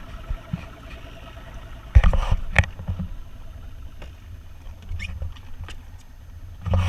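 Low wind and boat rumble, with a sharp knock about two seconds in and a few lighter clicks after it.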